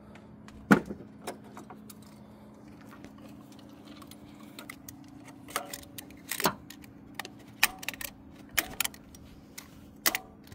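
Sharp metallic clicks and taps of needle-nose pliers against engine metal and mounting studs while old gasket material is picked off the EGR valve port. The clicks come irregularly, the loudest about a second in, over a faint steady low hum.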